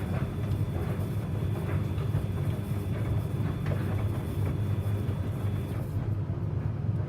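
Samsung front-loading washing machine running a Baby Care 95 °C boil wash: a steady low hum from the turning drum, with a soft swish of wet tea towels tumbling every couple of seconds.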